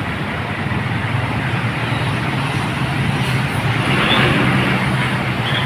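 Road traffic passing close by: a steady low engine drone and tyre roar that swells about four seconds in as a heavy vehicle goes past, with a couple of short high chirps near the end.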